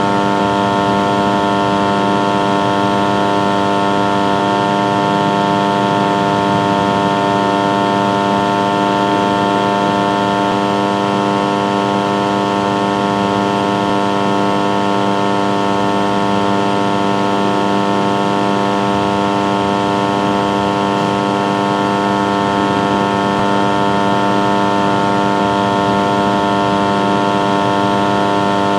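Air conditioner voltage stabilizer humming steadily at close range: a loud, constant electrical hum with many overtones over a light hiss.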